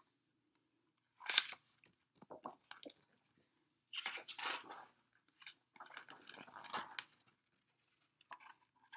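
Paper pages of a picture book rustling and crackling as a page is turned and the book is handled, in several short bursts.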